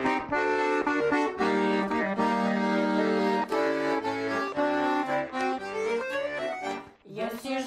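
Instrumental introduction to a Russian folk song: held chords under a moving melody, with no singing yet. The music dips briefly near the end.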